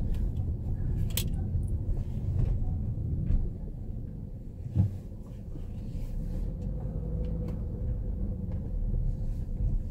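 Low, steady rumble of a Hyundai Tucson rolling slowly at low speed, heard from inside the cabin, with a sharp click about a second in and a short thump near the middle.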